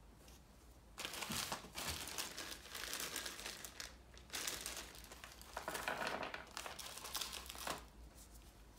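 A clear plastic bag crinkling and rustling as it is handled in gloved hands, in uneven bursts from about a second in until near the end.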